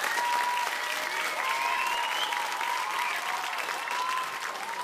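Theatre audience applauding steadily. A thin, wavering high tone with small rises and falls in pitch runs over the clapping.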